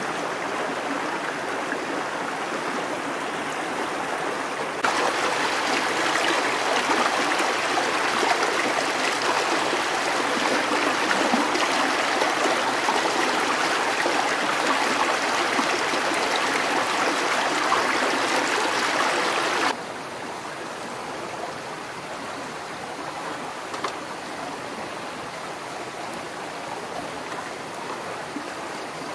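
Steady rushing of a flowing stream. It gets abruptly louder about five seconds in and drops back just as suddenly near twenty seconds.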